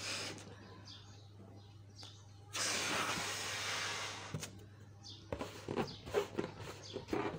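Rubber balloon being handled by hand. A steady hiss starts suddenly about two and a half seconds in and lasts nearly two seconds. After it come irregular short squeaks and rubbing as fingers work the balloon's skin.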